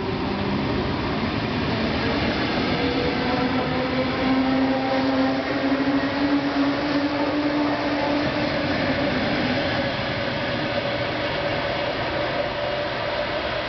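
Latvian Railways suburban electric multiple unit pulling away and gathering speed, with the steady rumble of its wheels on the rails. Its traction motors whine, the pitch rising slowly as it accelerates. The sound is loudest in the first half.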